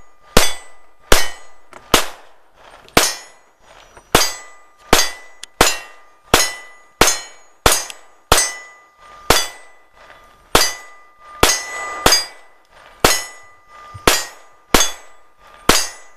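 A semi-automatic handgun fired shot after shot at a steady pace of about one a second, emptying a full magazine into a steel gong target. Each hit makes the steel plate ring with a clear metallic tone that hangs on between shots.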